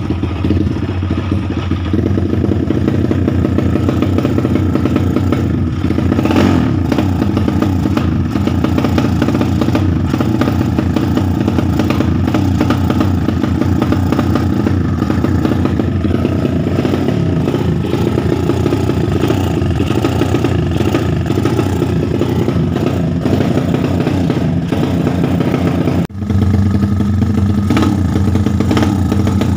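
Kawasaki KLX 150S fuel-injected single-cylinder four-stroke engine running steadily through an aftermarket slip-on exhaust, with a brief drop in sound about 26 s in before it runs on at a steady idle.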